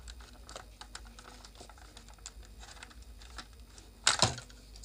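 Plastic clips and trim clicking and scraping as a curved trim piece is pried off a Bluetooth speaker's plastic housing by hand, with a sharp, louder crack about four seconds in as it gives.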